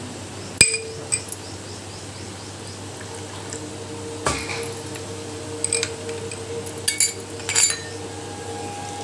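Steel spatula knocking and scraping against a stainless-steel kadai while stirring mustard paste into frying tomato masala. About nine irregular sharp clinks; the loudest comes about half a second in and leaves the pan ringing.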